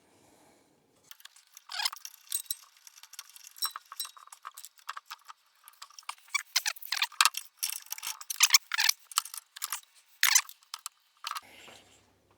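Small metal parts clinking and scraping in quick, irregular clusters as an O2 sensor spacer is threaded by hand into the bung of a catalytic-converter delete pipe.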